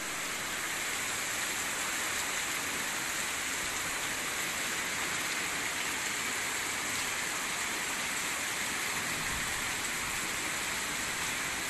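Fast-flowing muddy floodwater rushing: a steady, unbroken roar of water noise.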